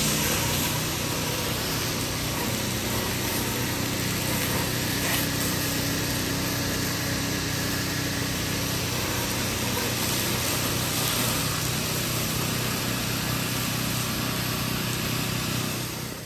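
A pressure-washing rig's gas engine running steadily under the hiss of a water spray aimed up at a gas station canopy.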